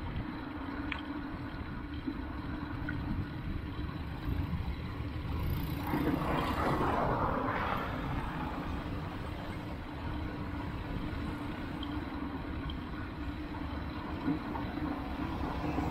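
Busy city road traffic heard from a bicycle: a steady drone of engines and tyres. It swells louder about halfway through, as a vehicle passes close by.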